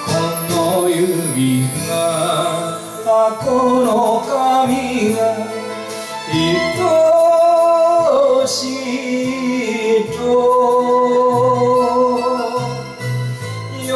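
A man singing an enka ballad into a microphone over instrumental accompaniment, his long notes wavering with vibrato.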